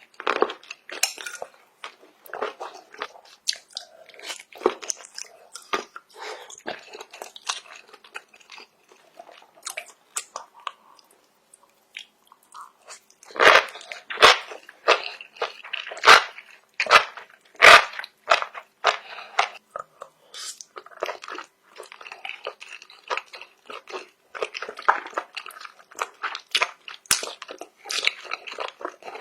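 Shrimp being bitten and chewed close to the microphone: irregular crunching and wet chewing throughout, with a run of loud, sharp crunches about halfway through.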